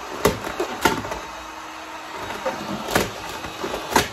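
Vinyl wrap film with a pink glitter finish crackling and snapping a few times as it is stretched and lifted over the car body, over the steady hiss of a heat gun running.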